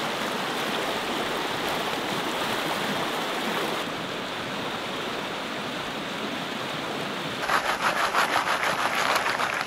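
Fast stream rushing over rocks, a steady wash of water. From about seven and a half seconds in, a louder rhythmic swishing of water and gravel shaken in a gold pan, about three to four strokes a second.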